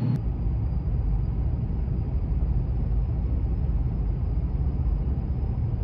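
Steady road rumble inside the cabin of a car driving along a highway.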